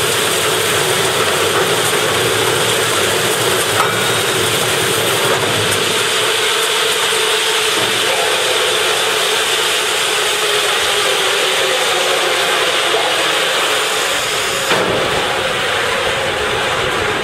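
HBY-500 ring debarker running, its rotor stripping bark from a log fed through at 20 m/min: a loud, steady mechanical noise with a hum. A knock comes about four seconds in and another near the end.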